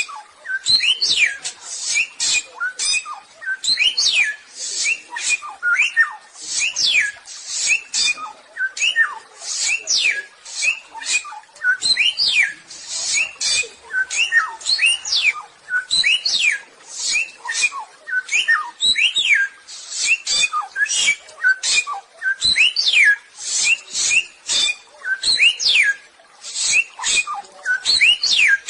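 Samyong bird singing non-stop: a fast stream of short, harsh, high chips, several a second, mixed with quick whistled notes that fall in pitch.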